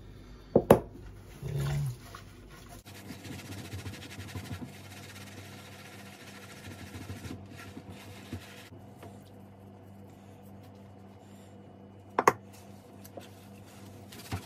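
Soapy loofah scrubbing a wet fabric fencing-mask bib, a soft steady scratchy rubbing. A sharp knock comes about a second in and another near the end.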